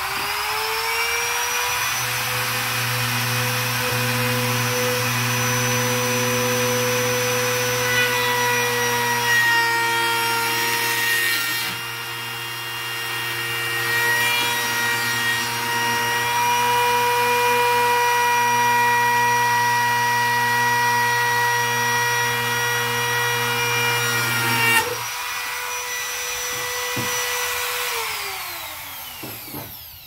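Handheld trim router with a 5/16-inch rounded bit spinning up to a steady high whine and cutting a groove into the plastic top trim of a chest freezer. About 28 seconds in it is switched off and its pitch falls as it winds down.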